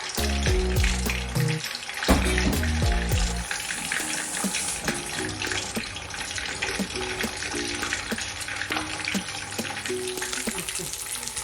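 Mackerel frying in hot palm oil: a steady sizzle full of small crackles and pops. Background music plays along, its low notes strongest in the first few seconds.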